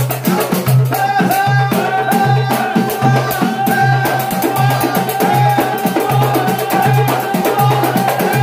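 Moroccan dakka marrakchia troupe playing: a large frame drum keeps a steady low beat under fast clattering small hand drums, and the men's unison chanting comes in about a second in.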